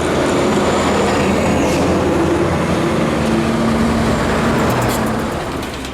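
A heavy road vehicle passing close by on a downhill bend: loud engine and tyre roar with a steady low engine drone, easing off near the end.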